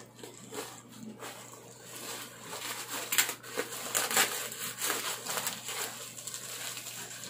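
Bubble wrap and plastic packaging crinkling and rustling as it is pulled off a parcel, with irregular sharp crackles.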